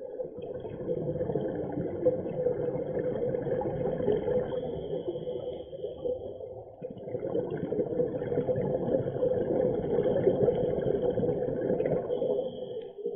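Muffled underwater rumble and bubbling of a scuba diver's regulator breathing, in two long stretches with a short break about seven seconds in.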